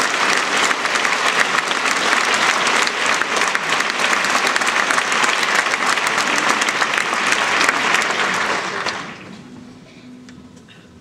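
Theatre audience applauding steadily, then dying away quickly about nine seconds in.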